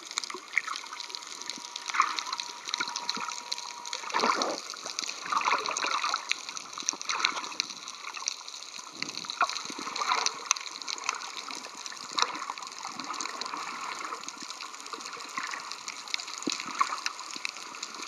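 Underwater ambience picked up by a submerged camera: a constant crackling, fizzing hiss of seawater, with a few louder swishes of water movement. A faint steady tone sounds for about three seconds near the start.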